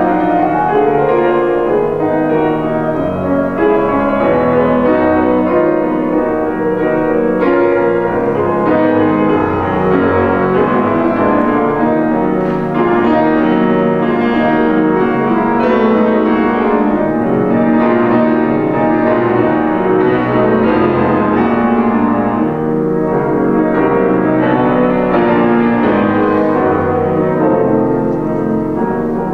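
Two grand pianos played together as a classical piano duet: dense, continuous playing with many notes sounding at once and no pauses.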